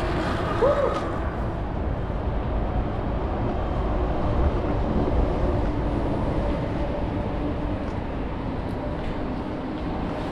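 City street traffic: a steady rumble of vehicles running past, with a low engine-like hum.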